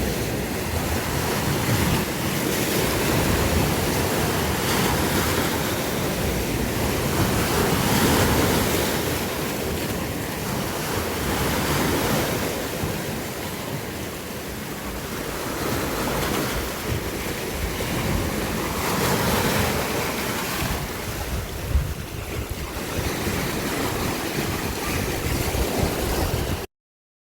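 Sea waves breaking and washing ashore, a continuous surf that swells and ebbs every few seconds. The sound cuts out briefly near the end.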